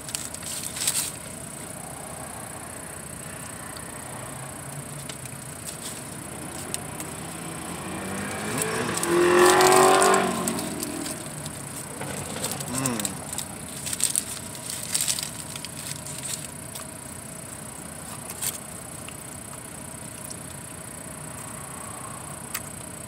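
A motor vehicle passes close by, swelling to its loudest about nine to ten seconds in and then fading with a falling pitch. Around it come scattered small crinkles and clicks from a paper burrito wrapper being handled.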